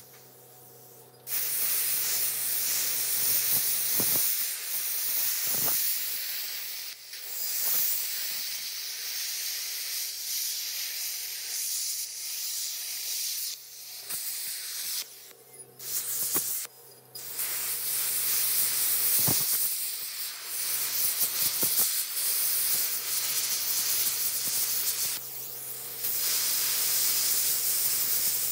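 Plasma cutter gouging out steel welds: a loud, steady hiss from the arc and air jet. It cuts off briefly and restarts a few times as the trigger is released, over a faint steady low hum.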